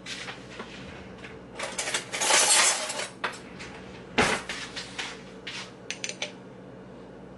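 Kitchen handling noise from a bottle and a metal ladle. A loud rattling runs from a little after one and a half seconds to about three seconds in, a sharp knock comes just after four seconds, and a run of light clinks follows for about two seconds.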